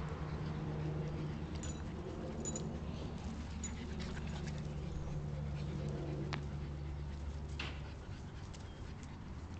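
Two small dogs play-fighting, with a few short high-pitched sounds from them in the first few seconds and a couple of sharp clicks later on. A steady low hum sits under it all and fades about eight seconds in.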